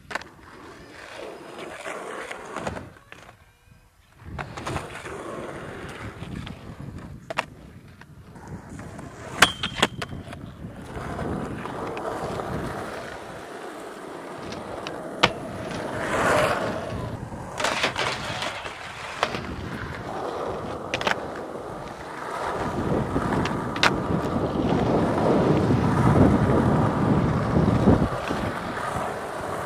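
Skateboard wheels rolling over tarmac, with sharp clacks scattered through as the board is popped and lands during tricks. The rolling grows louder and closer in the second half.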